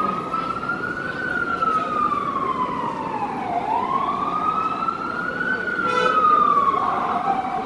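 Emergency vehicle siren wailing in slow cycles, rising and falling twice, over steady city street noise. Near the end it settles into a steady tone.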